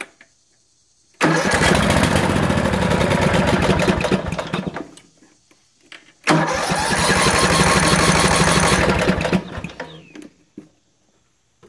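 Briggs & Stratton 14.5 HP OHV single-cylinder riding-mower engine cranked on its starter twice. Each burst of engine noise lasts about three and a half seconds, the first cutting off sharply and the second dying away.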